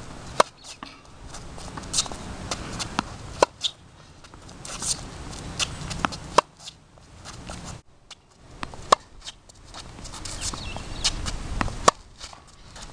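A tennis racket hitting a ball in a groundstroke rally, with sharp pops every couple of seconds, and fainter ball bounces and shoe steps on the hard court between the strokes.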